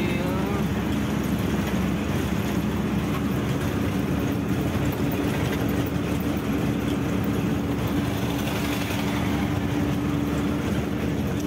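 A truck driving at a steady speed: engine running evenly under road noise, with a steady drone.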